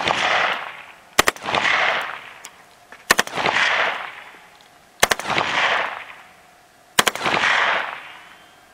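AR-15 rifle on full auto, fired in four short bursts of two or three shots about two seconds apart. Each burst is followed by an echo that fades over about a second.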